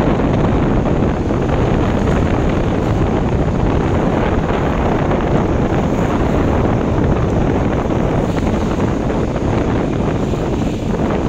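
Steady wind buffeting the microphone, a dense low rumble, over the sound of a boat on open water.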